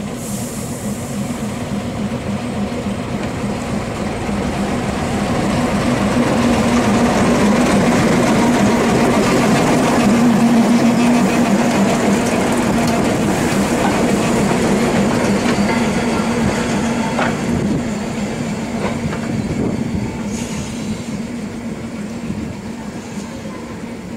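Rod-coupled diesel shunting locomotive running at low speed as it hauls a passenger coach past. Its engine drone grows louder as it nears, peaks about halfway through, then slowly fades as it moves away, with a few sharp clicks from the wheels on the track in the second half.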